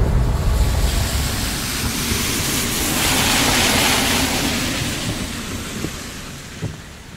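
A rushing storm sound effect over a low rumble, swelling to a peak about halfway through and then fading away.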